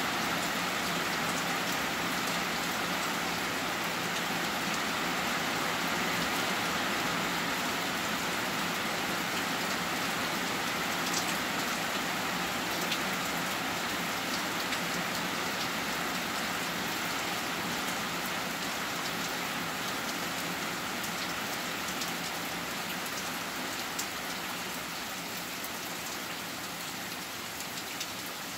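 Heavy rain pouring steadily, with scattered sharper ticks of single drops striking close by; it eases slightly toward the end.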